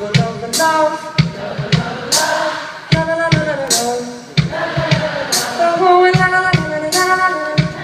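Live pop band music: a male lead vocal sung over a steady drum beat.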